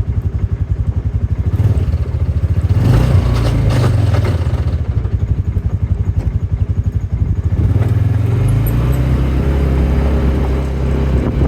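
An engine of farm machinery running close by with a steady pulsing drone, working harder and louder about three seconds in and again from about eight seconds in.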